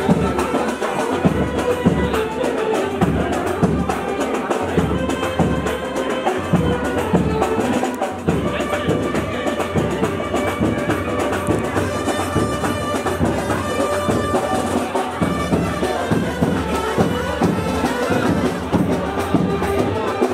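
Music with steady drumming and a reedy wind instrument holding long notes.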